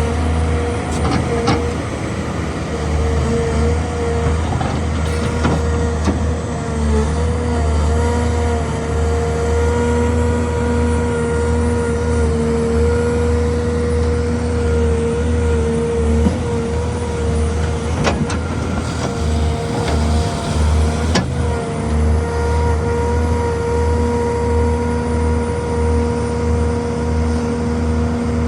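Hydraulic excavator's diesel engine running steadily under working load, holding a constant pitch, with a couple of sharp knocks in the second half.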